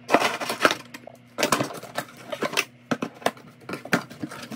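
Cardboard box being opened: packing tape cut and ripped and the cardboard flaps pulled back, in a run of short scraping, tearing and crackling sounds with sharp clicks.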